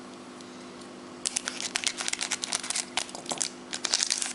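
Gold foil wrapper of a 1995 Upper Deck Fútbol Argentino card pack crinkling and crackling as it is handled, starting about a second in, over a faint steady hum.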